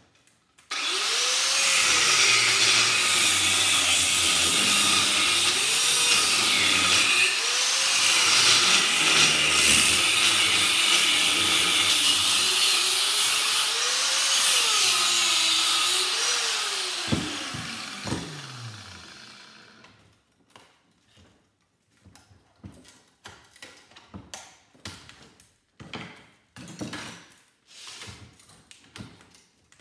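Electric angle grinder cutting metal, its pitch dipping and recovering as the blade bites, for about fifteen seconds; it is then switched off and spins down with a falling whine. Scattered metal knocks and clanks follow as the cut parts are handled.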